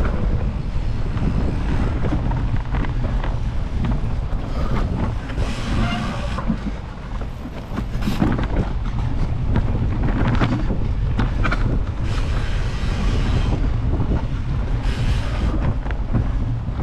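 Wind buffeting the microphone of a camera on a mountain bike moving fast, over the rumble and rattle of the bike rolling on dirt singletrack, with short stretches of higher hiss now and then.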